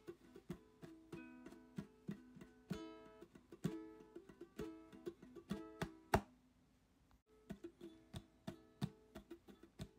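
Background music: a plucked guitar picking a light tune, with a brief break about seven seconds in.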